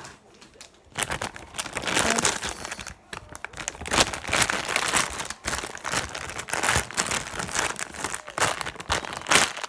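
Clear plastic squishy packaging bags crinkling as they are handled. The crinkling starts about a second in and continues densely, with a brief lull around three seconds.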